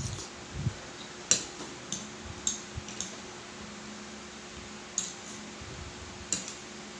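Metal fork clinking and scraping against a ceramic plate as food is scooped, about six sharp clinks spread unevenly through, over a steady electric fan hum.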